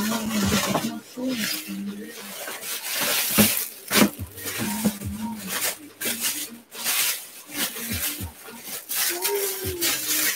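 Thin plastic wrapping crinkling and rustling as a pair of sneakers is pulled out of a cardboard shoebox, with short scrapes against the box. A low voice murmurs briefly a few times.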